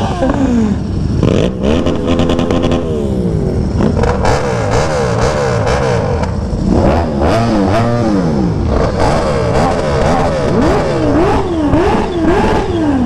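Several sport motorcycles idling with throttles being blipped, engine pitch repeatedly rising and falling, with a quick run of about four blips near the end.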